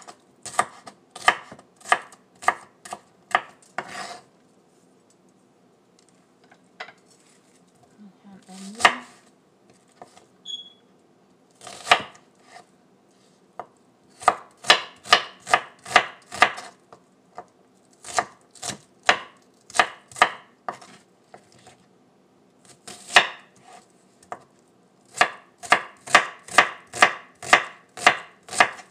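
Kitchen knife chopping vegetables on a wooden cutting board, dicing jalapeño and then onion: runs of quick strikes, about two to three a second, broken by short pauses.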